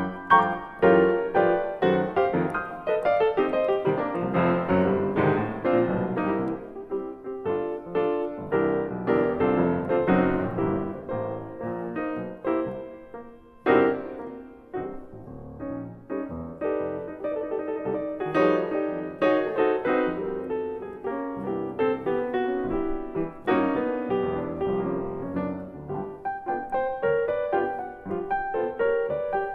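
Piano music, with many notes struck one after another.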